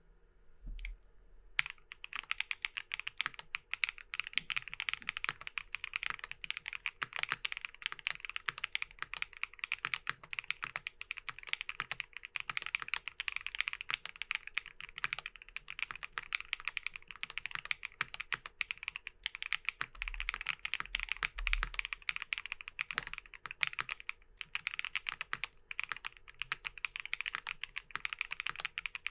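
Typing on a Nuxros Kraze 65% custom mechanical keyboard with Keygeek Y2 switches mounted in an aluminum plate. The fast, dense run of keystrokes starts about two seconds in, with a few brief pauses.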